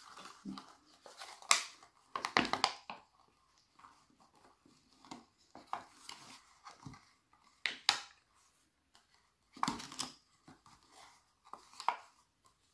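A clear plastic cup cut into strips crinkling and clicking in the hands as sock loops are woven and pressed around it, in a handful of short crackles with quiet between.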